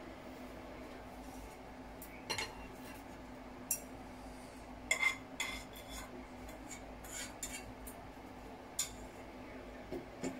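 A utensil clinking and scraping against a small metal saucepan while noodles are stirred in it: scattered sharp clinks, the loudest cluster about five seconds in, over a steady low hum.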